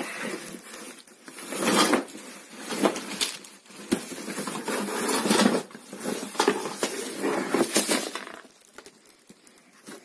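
Plastic packaging bags and a cardboard box crinkling and rustling in irregular bursts as fan parts are pulled out of the box, with a sharp knock about four seconds in. It quietens near the end.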